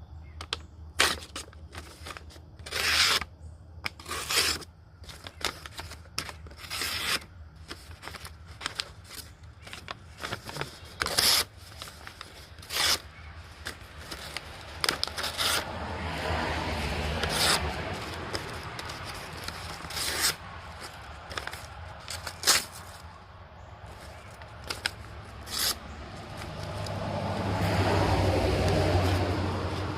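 Rough Rider Half Hawk pocket knife's blade making short, irregular scraping strokes, a few dozen in all. A low rumble swells up twice, around the middle and near the end.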